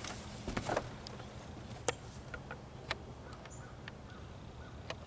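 Scattered light knocks and scuffs of a person climbing into a car's seat through the open door, over a faint low outdoor hum.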